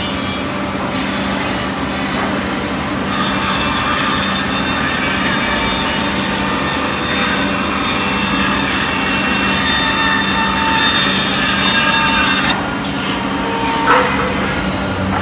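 CNC jigsaw's reciprocating blade sawing through a clamped stack of wooden chair blanks, a dense rasping cut over the machine's steady hum. The cutting stops abruptly a couple of seconds before the end, followed by a brief knock.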